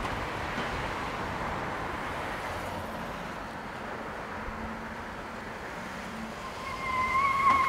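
Steady city street traffic, cars passing. Near the end a high, slightly wavering squeal starts over the traffic.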